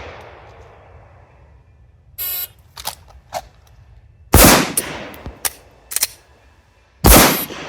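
A shot-timer beep, then gunshots from a carbine-to-handgun transition drill. The two loudest shots come about two and five seconds after the beep, with smaller cracks and clicks between them. The last shot falls about 4.9 seconds after the beep, matching the timer's 4.92 total.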